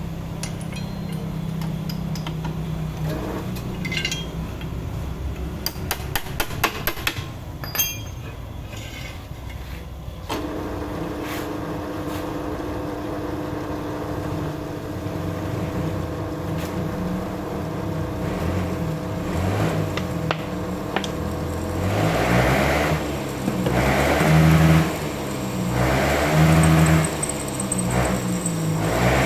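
Metal clinking and knocking several times over a low hum. About ten seconds in, a motor starts and runs with a steady hum. Near the end a louder sound swells and falls about every two seconds, consistent with a drill working into the steel of a leaf spring.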